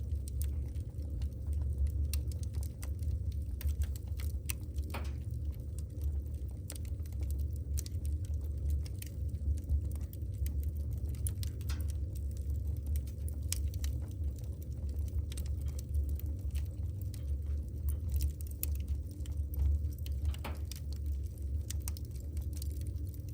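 Firewood burning in a fireplace, crackling with frequent irregular sharp pops over a steady low rumble of the flames.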